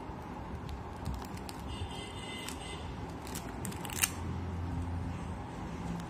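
Hand-work of taping an earphone cable: scattered small clicks and rustles, a brief rasp about two seconds in, and one sharp click about four seconds in.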